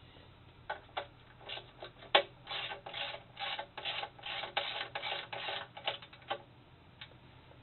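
Socket ratchet clicking as nylon lock nuts are run up under a chair seat's pedestal mount. It starts with a few single clicks, then about two short bursts a second for around four seconds, and ends with a last click.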